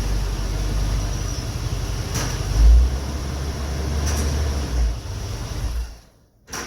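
Chevrolet C10 pickup engine running as the truck is driven in, with a brief surge about two and a half seconds in, then shut off about six seconds in. A short click follows near the end.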